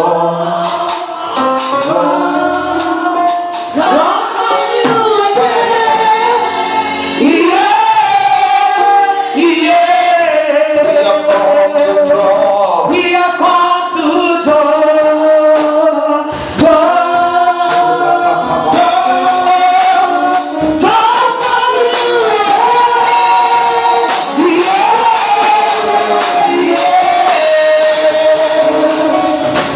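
Gospel song sung by a group of male and female voices over instrumental accompaniment. Sharp percussion strikes keep a beat that grows busier in the second half.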